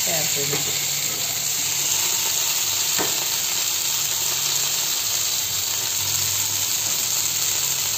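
Fish pieces sizzling as they shallow-fry in hot oil in a kadai, a steady hiss with a metal spatula stirring them. A single sharp click, about three seconds in.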